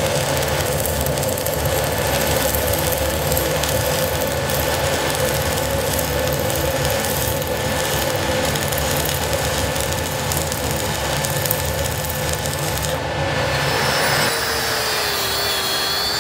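Stick welding arc with 6010/6011 electrodes, crackling and frying steadily as beads are run. Near the end an angle grinder with a wire wheel takes over, running with a steady, slightly wavering whine.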